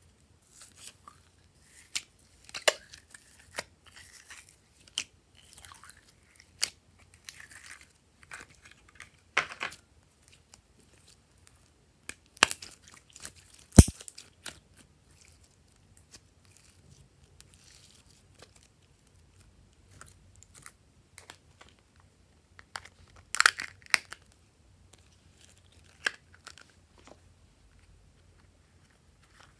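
Glitter slime being squeezed, stretched and pulled apart by hand: scattered short sticky crackles and pops, with one sharp snap about halfway through.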